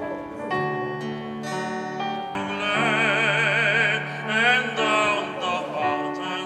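Electronic keyboard and acoustic guitar playing a slow introduction, then a man begins singing in a classical style with wide vibrato about two and a half seconds in, over the accompaniment.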